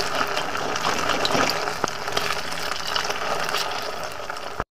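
Sabudana gulab jamun balls deep-frying in hot refined oil in a kadhai: steady sizzling and crackling of the bubbling oil, with a few sharper clicks. It cuts off abruptly near the end.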